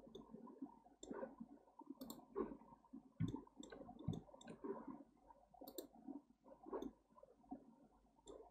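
Faint computer mouse clicks, scattered and irregular, some single and some in quick groups of two or three, over a low rustle.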